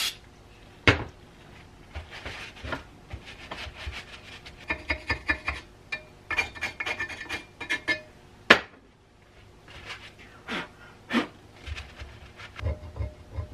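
A cloth and gloved hand scrubbing gummed-up old grease off the grinder's painted cast-iron housing with carb cleaner, in irregular rubbing strokes with brief squeaks. A few sharp knocks come as the part is shifted on the metal tray.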